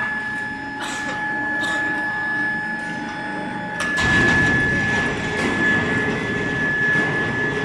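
Medium-frequency induction melting furnace running with a steady high-pitched whine, over a background of clatter and knocks. About four seconds in a second, lower tone stops and a louder rough rumble sets in.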